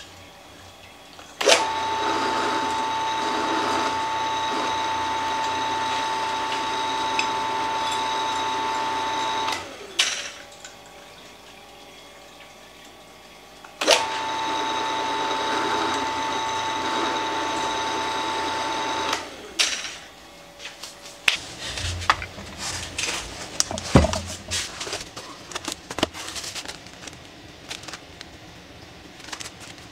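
Benchtop drill press switched on twice, its motor running with a steady high tone for about eight seconds and then about five, as the bit drills into square steel tubing clamped in a vise. In the last several seconds, irregular crackling and knocking of plastic packaging and a cardboard box being handled.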